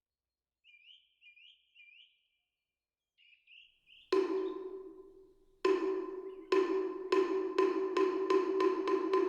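A small bird gives a few short chirping calls. About four seconds in a moktak (Buddhist wooden fish) is struck once and left ringing, then struck again, faster and faster, into a quick even roll, each stroke ringing with a clear pitch.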